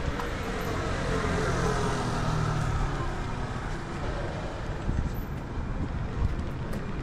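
A motor vehicle passing close by, its sound falling in pitch as it goes past, over steady street traffic noise.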